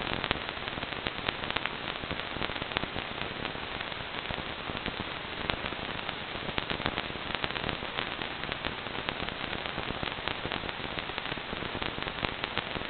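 Static from an analog FPV video receiver with no signal: a steady hiss full of rapid irregular crackles and clicks.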